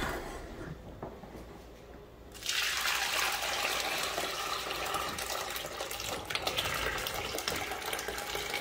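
Buttermilk and freshly churned butter pouring in a steady stream from a stainless steel butter churn into a cloth-lined bowl, to strain the buttermilk off the butter. The pour starts suddenly about two and a half seconds in.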